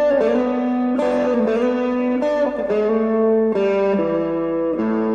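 Electric guitar playing a slow blues lick note by note: double stops slid up a couple of frets, with single notes ringing between them. Each note or pair changes about every second.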